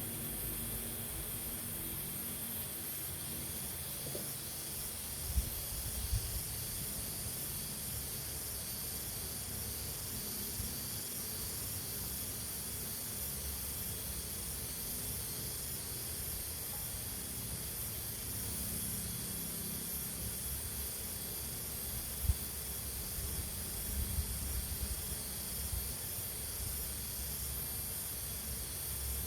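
Steady high hiss of a pesticide sprayer's nozzle misting chili plants, with a few dull knocks now and then.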